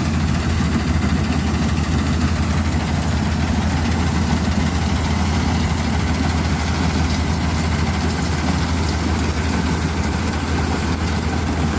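Jasvir combine harvester running steadily while cutting paddy: a constant low engine drone under the even din of its header and threshing machinery.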